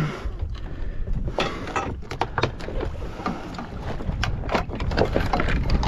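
Irregular splashes and knocks at the stern of a small boat as a hooked fish thrashes at the surface alongside, over a steady rumble of wind on the microphone.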